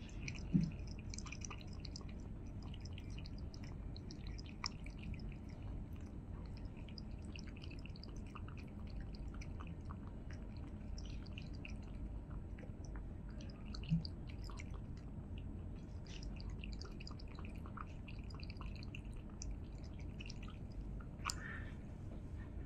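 Scottish Fold cat lapping water from a tall stainless steel cup: a steady run of small wet clicks and splashes from its tongue. Two soft thumps stand out, one about half a second in and one near the middle.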